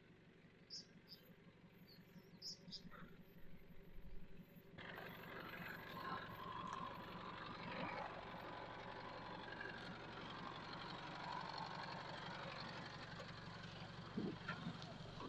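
Isuzu D-Max's 2.5-litre turbodiesel running faintly at a crawl as the bakkie comes down a steep rutted dirt track, slowly growing louder as it nears. A rough rustle of tyres on dirt and stones joins about five seconds in.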